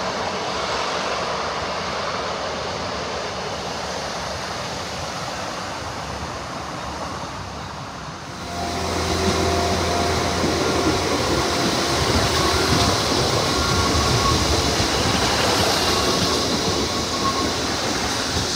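A train crossing a railway viaduct overhead, a steady rumble; then, after a cut about eight seconds in, a Northern Class 150 Sprinter diesel multiple unit pulling into the platform and passing close. It runs louder, with a low diesel engine drone and a steady whine.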